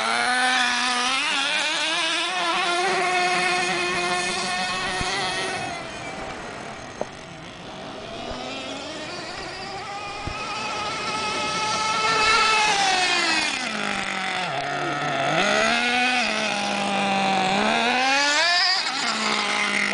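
Mini MGT's engine revving up and down several times, its pitch rising and falling, with a funny squeaking sound that the owner cannot explain.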